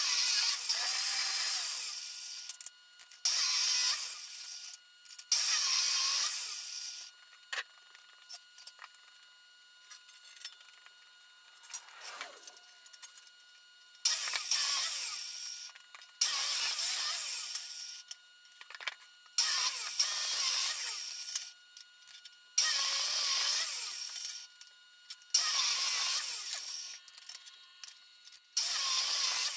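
A woodworking tool working wood in repeated strokes, each lasting one to two seconds with short pauses between.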